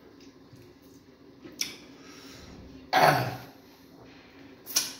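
A person clears their throat once, about three seconds in. Shorter, sharp clicks come about a second before it and again near the end.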